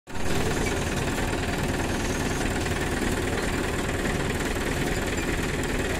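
Tractor diesel engine running steadily, driving a long flat belt from its rear pulley to a sugarcane crusher.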